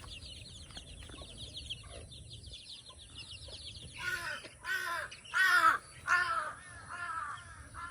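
A crow cawing about five times in harsh, falling calls, starting about halfway in. Before that come high, rapid chirps.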